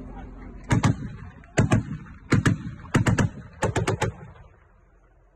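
Bursts of gunfire: five quick volleys of two to four sharp shots each over about three seconds, stopping about four and a half seconds in.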